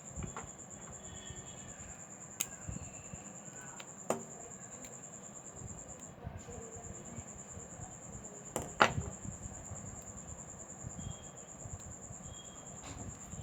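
Scattered small clicks and taps from handling a smartphone and repair tools, with one louder knock about nine seconds in, over a steady high-pitched whine.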